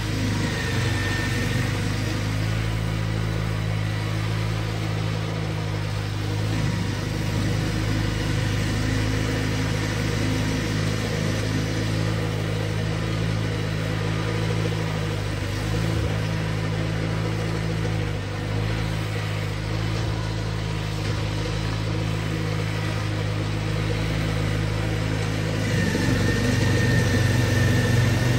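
A John Deere 318 garden tractor's engine runs steadily while its front-mounted snowblower works through heavy wet snow. A faint high whine comes in about a second in and again near the end, and the sound grows a little louder toward the end.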